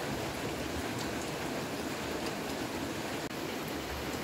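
A steady, even rushing noise with no separate events in it.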